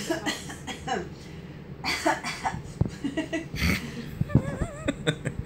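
A woman coughing several times on request, short deliberate coughs to make the twins move during the ultrasound scan. A brief wavering voice comes near the end.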